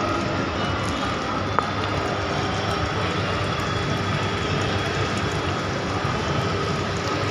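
Fish tanks' air pumps and aeration: a steady hum with the rush of bubbling water, and one small click about a second and a half in.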